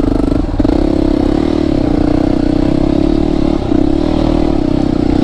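Motorcycle engine running steadily under throttle as the bike rides along a gravel trail, with a brief dip in the engine note about half a second in.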